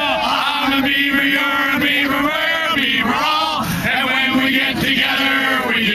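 A few voices singing a chant together in unison, in several phrases held on a steady note with short breaks between them.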